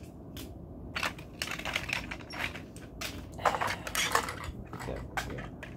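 Toy train tenders being handled: plastic clicks, rattles and rustles as they are pulled apart, picked up and moved about on the floor, busiest in the middle.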